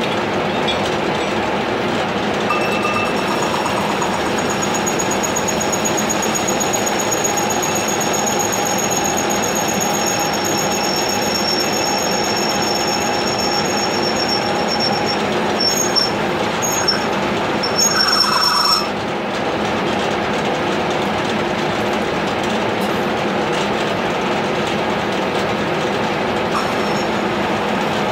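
Horizontal milling machine running with a steady mechanical drone and a thin, high-pitched squeal over it. The squeal starts a couple of seconds in, gives a few louder squeaks near the end, and cuts off suddenly about two-thirds of the way through while the machine keeps running.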